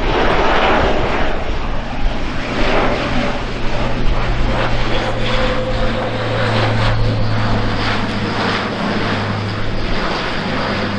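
Airbus A400M Atlas's four Europrop TP400 turboprops and eight-bladed propellers droning as the aircraft flies past low: a steady low propeller hum under a broad rushing noise.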